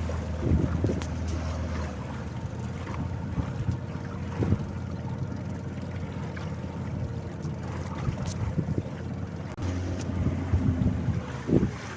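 Fishing boat's engine running steadily at sea, with wind buffeting the microphone and a few short knocks.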